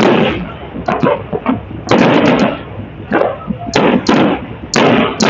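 Aerial firework shells bursting overhead in quick succession, a loud boom about every second, some in quick clusters of two or three, each trailing off.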